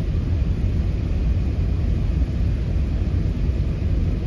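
Steady low rumble inside the passenger cabin of an Airbus A380 in flight on approach to land: engine and airflow noise with no distinct events.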